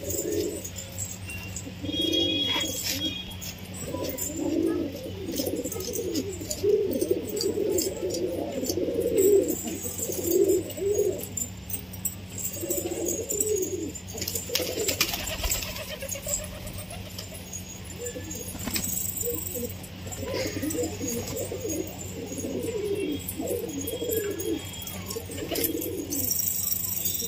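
A flock of domestic pigeons cooing, many low coos repeating and overlapping, with scattered short clicks as they peck at the ground.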